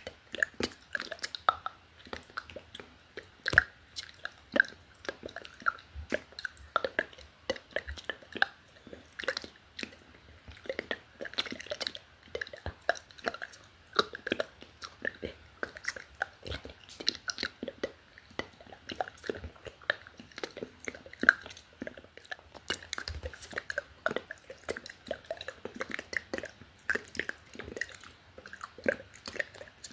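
Close-miked ASMR mouth sounds: a dense, irregular stream of wet clicks and lip smacks mixed with unintelligible whispering.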